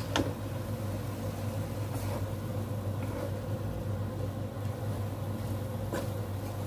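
Wooden spatula stirring shredded papaya in a wok, with a few light knocks against the pan, over a steady low mechanical hum from a kitchen appliance.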